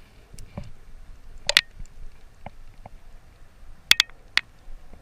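A few scattered sharp clicks and knocks: the loudest about a second and a half in, and a close pair followed by another near the four-second mark.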